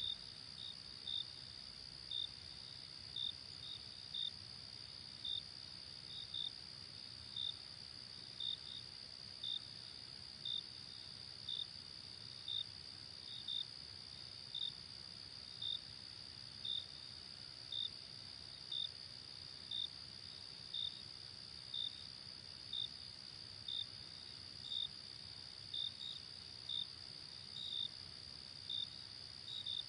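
Crickets singing: a steady high-pitched trill under short, louder chirps about once a second, sometimes in quick pairs.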